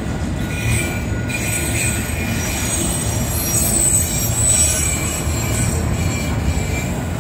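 Freight train's autorack cars rolling slowly past: a steady rumble of steel wheels on rail with a thin, high-pitched wheel squeal running over it.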